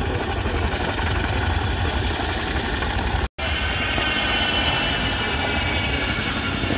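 Boeing Chinook HC6 tandem-rotor helicopter flying low, its rotor blades beating in a steady rhythmic thud with a high whine over it. The sound drops out for a moment a little over three seconds in.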